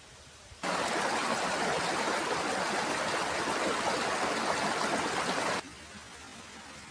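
Rushing water of a stream, an even hiss that cuts in abruptly about half a second in and cuts off just as abruptly about five seconds later.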